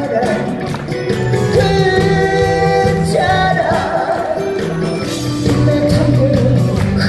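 A male singer sings a Korean trot song live into a microphone, backed by a band with a steady beat.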